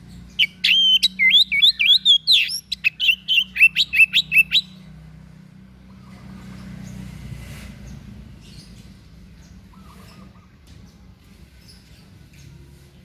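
A songbird sings a rapid, loud string of sharp, varied whistled notes for about four seconds. The phrase then stops, leaving only faint background.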